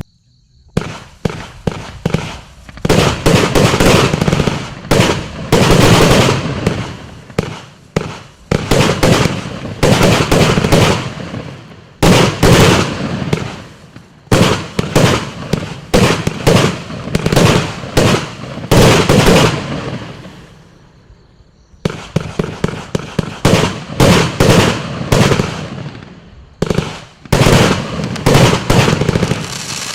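A 144-shot compound fireworks cake firing in rapid succession: sharp launch thumps several a second, each followed by its aerial bursts dying away. The shots trail off about two-thirds of the way through, then a fresh barrage starts.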